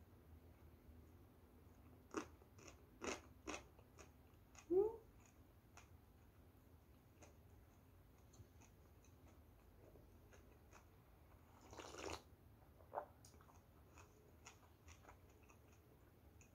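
Quiet chewing of a mouthful of kimbap (seaweed-wrapped rice roll), with scattered soft mouth clicks. A short rising tone about five seconds in is the loudest sound.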